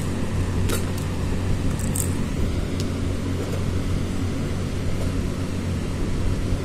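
A steady low mechanical hum, like a fan or other room machinery running, with a couple of faint clicks about one and two seconds in.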